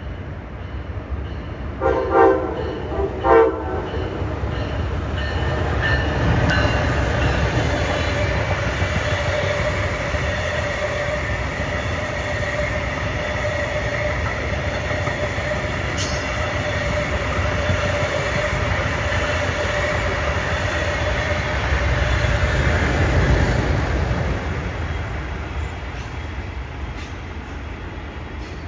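Passenger train sounding two short horn blasts, then passing with a steady rumble and a held whine, growing louder to a peak about three quarters of the way through before fading away.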